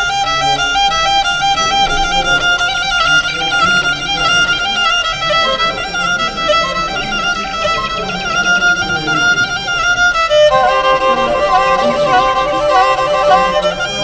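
Instrumental background music with a sustained melody; the music moves to a new phrase about ten and a half seconds in.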